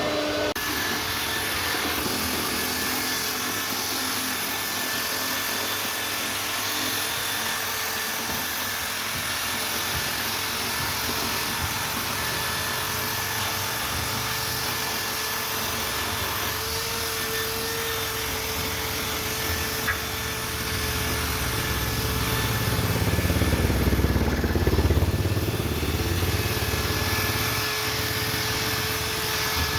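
CNC router spindle running steadily as it cuts into wood, with a constant whine over a broad hiss of cutting. A louder low rumble swells about three-quarters of the way through, then eases off.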